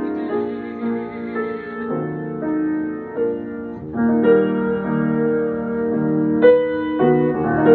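Piano playing slow, sustained chords that shift every half second or so: the accompaniment of a classical art song, in a passage between the soprano's phrases.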